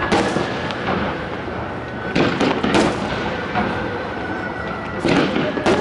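Aerial firework shells bursting in the sky: a bang just after the start, a quick cluster of bangs about two seconds in, and another cluster near the end.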